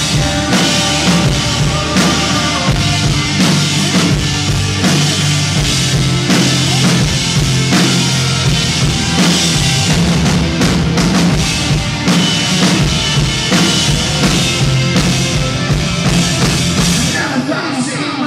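A live rock band playing an instrumental passage without vocals: electric guitars and bass over a drum kit keeping a steady beat.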